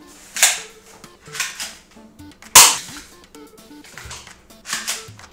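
Spring-powered airsoft pistol (Cybergun FN FNS-9) firing twice, about two seconds apart. Each shot is a sharp snap, and the second, near the middle, is the louder. Quieter clicks come between and after the shots.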